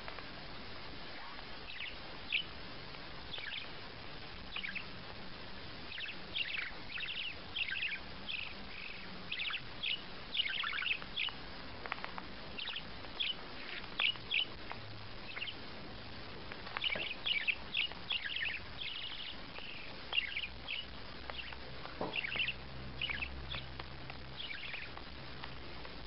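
Small white pet parakeet chirping: short, high, downward-sliding chirps, singly and in quick runs, over a steady hiss.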